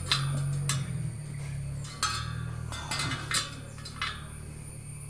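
A ring-type spoke key clicking and clinking against bicycle spokes and nipples as the right-side spokes are tightened to true the rim: several short, sharp metal ticks a second or so apart, over a low steady hum.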